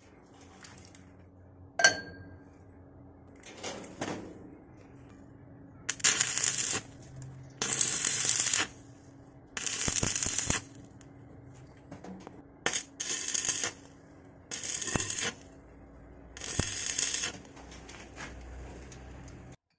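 Arc welding on galvanized steel pipe: the arc crackles and hisses in six short bursts of about a second each. A single ringing metallic clink comes about two seconds in.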